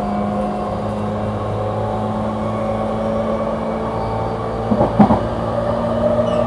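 Cabin noise of a JR East E235 series electric train under way: a steady low hum with a higher motor whine that edges slightly up in pitch. A brief clatter comes about five seconds in.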